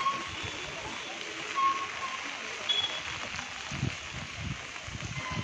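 Steady rain falling on a wet street, an even hiss, with a few short faint tones and low thuds over it.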